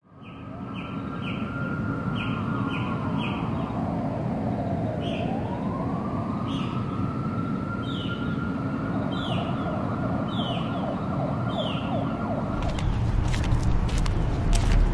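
A siren wailing over a steady low rumble. Its tone dips about five seconds in and glides back up, and short repeated chirps sound above it. Near the end a deeper rumble comes in, with a few sharp taps.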